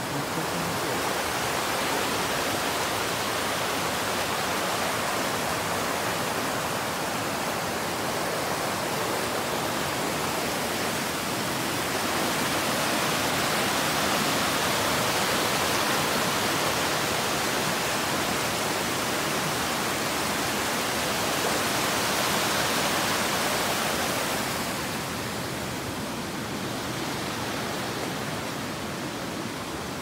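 Mountain stream rushing over boulders and rapids: a steady rush of water, louder in the middle and easing off near the end.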